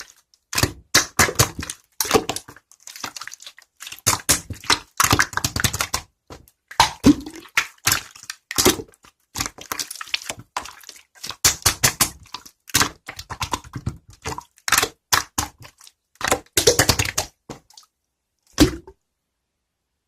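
Rapid, irregular clicks, taps and crackles, some with a dull thunk, coming in clusters and stopping suddenly about nineteen seconds in.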